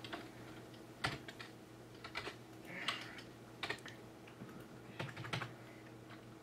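Scattered keystrokes on a computer keyboard: several separate, fairly quiet key presses about a second apart, over a faint steady hum.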